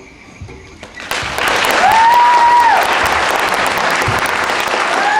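An audience breaks into loud applause about a second in. A long whistle rises, holds and falls over the clapping, and a shorter whistle comes near the end.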